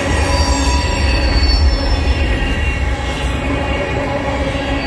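Loaded oil tank cars of a freight train rolling past: a loud, steady rumble of steel wheels on rail, with thin, high wheel squeal over it.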